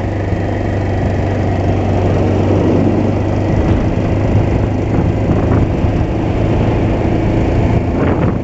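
Motorcycle engine running steadily under way, a constant low hum with wind and road noise rushing over the microphone.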